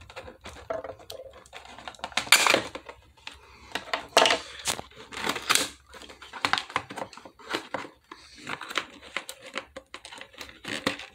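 Plastic packaging crinkling and clicking in irregular bursts as a plastic action figure is worked free of its package and handled. The loudest crackle comes about two seconds in.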